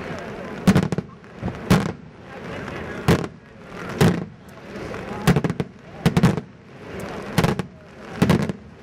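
Daytime aerial fireworks shells bursting overhead: a loud bang about once a second, eight in all, each followed by a short crackle and echo.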